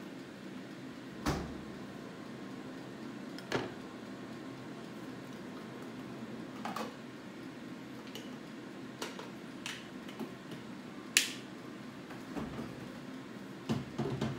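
Scattered knocks and clinks of tableware being handled and set down on a table, about eight in all, the loudest, with a brief ring, about eleven seconds in, over a steady low hum.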